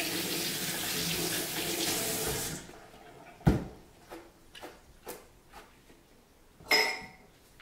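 Kitchen tap running for about two and a half seconds, then turned off. A sharp knock follows, then several lighter knocks and clicks.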